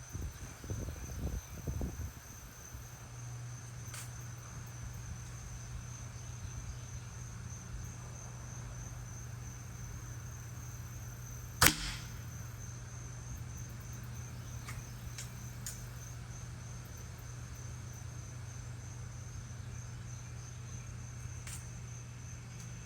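A Ruger Impact Max break-barrel air rifle fires once about halfway through: a single sharp crack of the shot and the .22 pellet striking the target, heard from beside the target. A few faint ticks, a steady high-pitched insect trill and a low steady hum fill the rest.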